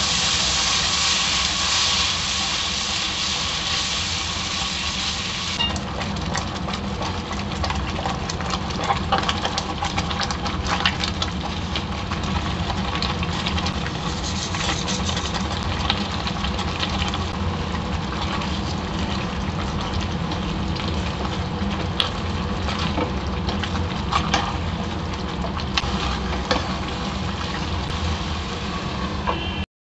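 Marinated chicken cooking in butter in a nonstick pan. A loud sizzling hiss lasts about the first six seconds, then quieter frying continues while a spatula stirs and scrapes, making scattered clicks. A steady low hum runs underneath.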